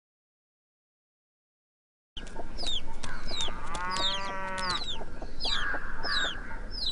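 Silence for about two seconds, then village ambience: small birds chirping over and over in short falling chirps, and a chicken giving one long call about four seconds in.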